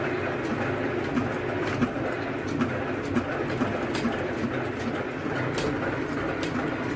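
Engine-driven borewell drilling rig running steadily, with a few light clicks over it.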